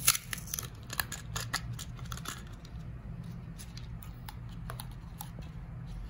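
Hard plastic clicks, taps and scrapes as a quartz clock movement is pushed out of its plastic housing and handled, with a quick run of clicks in the first couple of seconds and scattered taps after.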